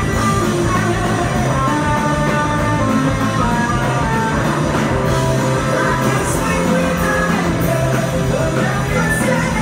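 A rock band playing live and loud: distorted electric guitar, bass and drums, with a woman singing into a microphone.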